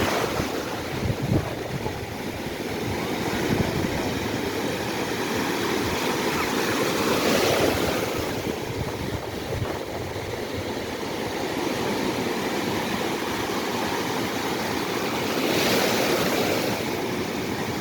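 Black Sea surf: long, ocean-like swell waves breaking and washing onto the shore, a continuous rush that swells roughly every eight seconds as each big wave comes in.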